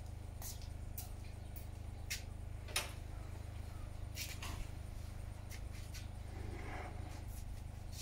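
Scattered light clicks and taps from footsteps in slide sandals on concrete and from hands working boards on a car roof rack, over a steady low hum.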